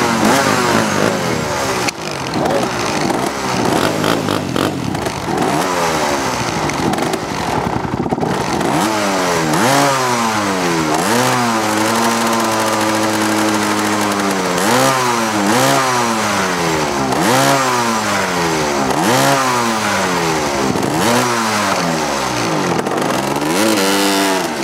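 ATV (four-wheeler) engine revving up and down over and over, its pitch climbing and dropping in quick sweeps about once a second, with a couple of seconds of steady pitch about midway.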